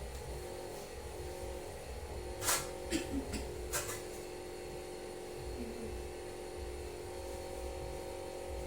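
Steady mechanical hum, with four short sharp clicks and knocks between about two and a half and four seconds in: handling noise as a patient is moved into position for chest physiotherapy.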